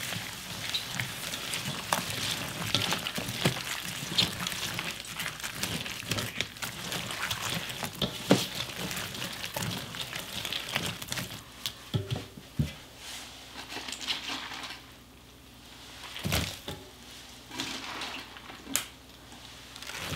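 Gloved hand mixing thick chili-pepper kimchi seasoning paste in a stainless steel bowl: wet squishing and smacking with many small clicks. The mixing sound drops away about three quarters of the way through, leaving a few separate clicks.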